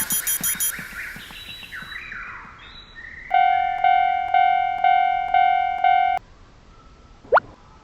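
Cartoon sound effects: a quick run of short sliding chirps, then an electronic railroad crossing bell ringing steady, even dings about twice a second for about three seconds, and one fast rising slide near the end.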